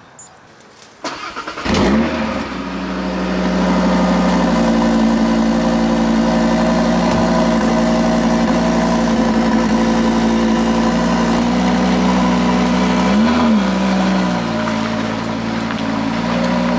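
Cupra Formentor VZ5's 2.5-litre turbocharged five-cylinder, breathing through an Akrapovic Evolution exhaust, is started: it catches about a second and a half in with a brief flare of revs, then idles steadily. A short blip of the throttle comes near the end.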